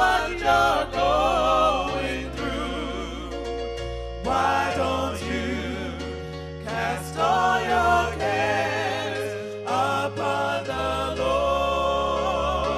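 Gospel music: singing with a wavering vibrato over held bass notes that change every second or two.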